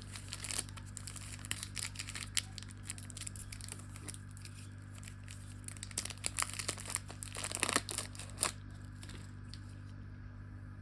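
Plastic lollipop wrapper crinkling and tearing as it is handled and opened: dense sharp crackles that stop about eight and a half seconds in, leaving only a low steady hum.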